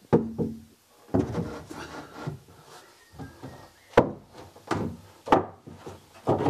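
Plywood cabinet panels being knocked and shifted into place on a wooden frame: several sharp wooden knocks, with scraping and rubbing in between.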